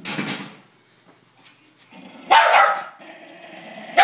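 A dog barking while playing over a toy, in short bursts: one at the start, a louder one a little over two seconds in, and another at the end.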